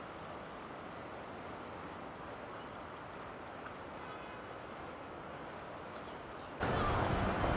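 Steady noise of boats running on the river. About two-thirds of the way through it jumps suddenly louder, with a deeper engine rumble, as at a cut to a closer boat.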